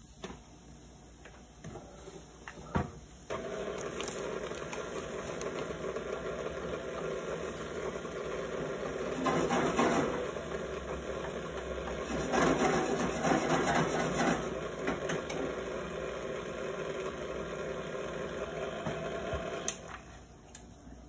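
Electric mixer motor running steadily as it mixes yeast bread dough, switching on about three seconds in and off near the end, with two louder stretches in the middle. A few short knocks come just before it starts.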